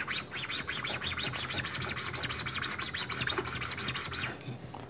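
A hand tool rubbed quickly back and forth across a machined aluminum part, about five scraping strokes a second, to smooth down a small raised lump on the surface. The strokes stop a little before the end.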